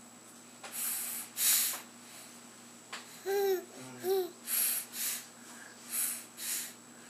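Quick nasal sniffs in three pairs, a playful sniffle, with an infant's two short rising-and-falling vocal sounds between the first and second pair.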